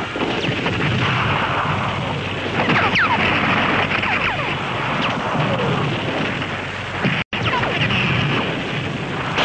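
Continuous gunfire and blasts of live covering fire, loud and dense, with several short falling whistles through it. The sound cuts out for a moment about seven seconds in.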